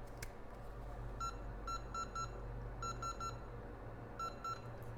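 Short electronic beeps from microsoldering bench equipment, about nine of them in quick groups of four, three and two, over a steady low hum, as the equipment is set up for soldering down the CPU.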